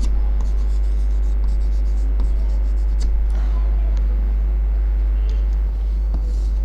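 Loud, steady electrical mains hum, with a few faint clicks and scrapes of chalk writing on a board over it.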